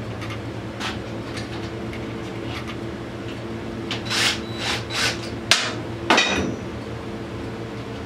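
Metal hand tools knocking and clanking against an ATV's rear axle assembly. A scattered series of sharp knocks, the loudest bunched between about four and six and a half seconds in, one of them ringing briefly.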